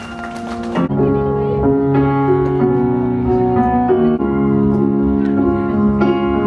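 Slow music on keyboard, held chords changing about once a second. Just under a second in, a busier passage with sharp strikes gives way to the sustained chords.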